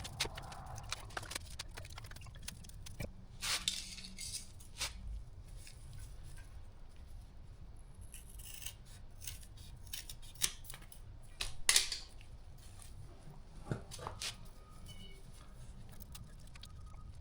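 Scattered clicks, scrapes and rustles of a stainless steel zip tie being fitted and pulled tight around exhaust header wrap, with the sharpest cluster of clicks about two-thirds of the way through.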